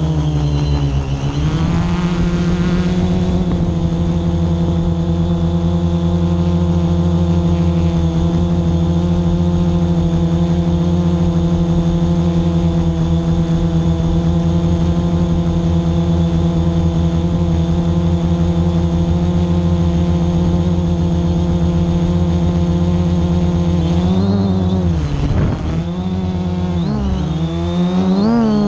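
Drone propellers and motors buzzing loudly and steadily in flight, heard close up from the drone itself. The pitch dips briefly about a second in, then wavers up and down near the end as the drone manoeuvres.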